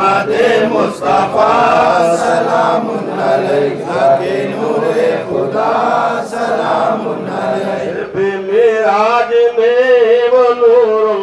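Men's voices chanting a devotional salam to the Prophet, a sung greeting in Urdu, recited together as a group.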